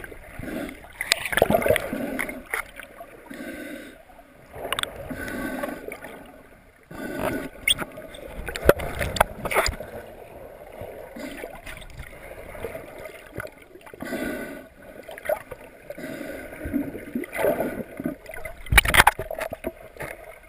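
Muffled underwater sound around a submerged camera: water sloshing and gurgling, with scattered sharp knocks, the loudest about a second and a half before the end.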